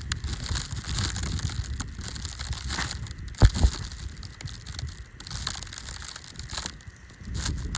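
Crunching and crackling of deep snow close to the microphone, over a constant low rumble of wind on the microphone, with a heavier crunch or thump about three and a half seconds in.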